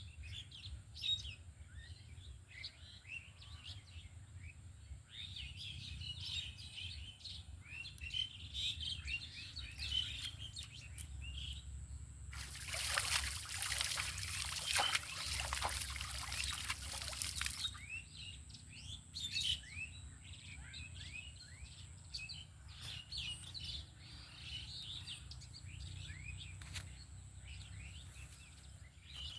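Many small birds chirping and twittering throughout. Near the middle there is a rush of splashing, pouring water that lasts about five seconds.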